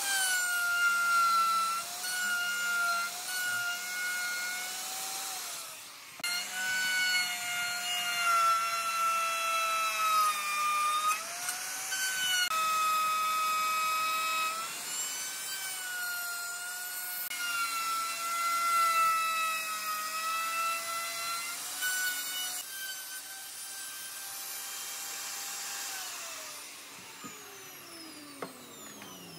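Electric plunge router cutting into a wooden board: a steady high motor whine whose pitch sags each time the bit bites harder into the wood and then recovers. Near the end the router is switched off and the whine falls away as the motor spins down.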